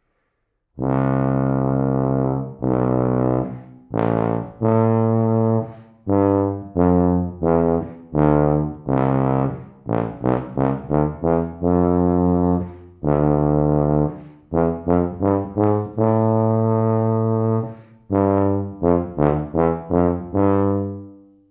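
Solo Wessex Vienna F tuba played unaccompanied, beginning about a second in: a phrase of long held low notes mixed with quicker runs of short notes, ending just before the close.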